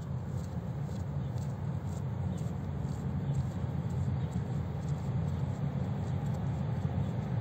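Steady low rumble of an electric commuter train approaching along an elevated railway track, slowly growing louder, mixed with distant road traffic noise.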